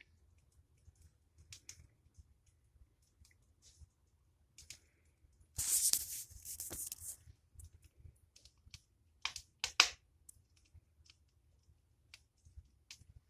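Fire in a fireplace crackling with scattered sharp snaps. About five and a half seconds in there is a hissing burst lasting over a second, and near ten seconds two loud pops come in quick succession.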